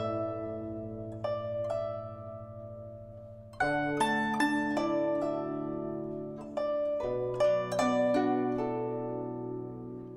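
Background music: a gentle plucked-string melody over long held low notes, with new chords entering about three and a half and seven seconds in.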